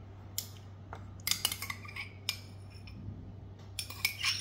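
A metal spoon clinking and scraping against glassware in a string of short, irregular clinks, with a cluster of them near the end, as a cup of yogurt is scooped out into a glass dish of flour.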